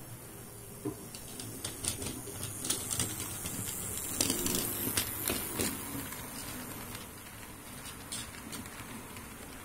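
Model railway passenger train running past, its wheels clicking and rattling over the rail joints and points; the clatter swells to its loudest about midway and then fades.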